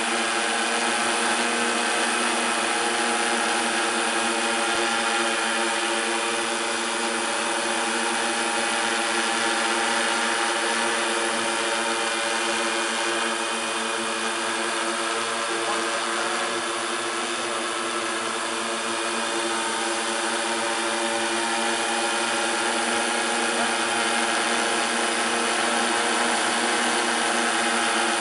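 Kraken 130 heavy-lift multirotor drone hovering: the steady hum of its many electric motors and propellers, several tones held together over a rushing whir.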